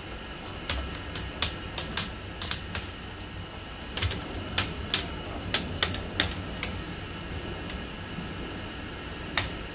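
Sharp plastic clicks and snaps as a plastic pry tool works around an Asus X507U laptop's screen bezel and its clips pop loose. They come in a quick run starting just under a second in, a second run from about four seconds, and one last snap near the end, over a steady low hum.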